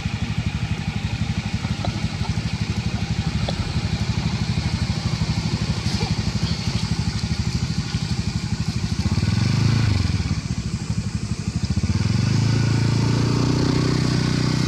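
Engine running steadily with a fast, even beat, growing louder about two-thirds of the way through and again near the end.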